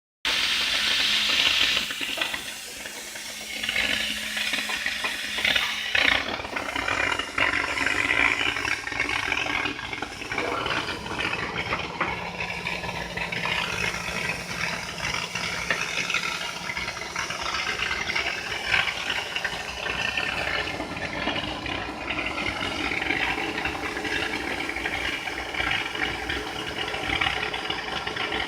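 Portable CNC plasma cutter's torch cutting stainless steel: a loud, steady hiss of the plasma arc and air jet, dipping briefly about two seconds in before the cut runs on.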